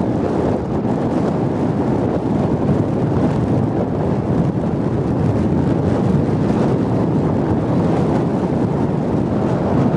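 Strong wind buffeting the microphone: a steady, loud rush of noise, heaviest in the low end, with small gusty swells.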